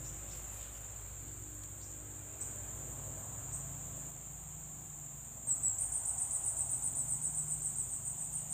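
Insects shrilling steadily at a high pitch in the swamp vegetation. About five and a half seconds in, a louder insect joins with a fast pulsing chirp, roughly seven pulses a second.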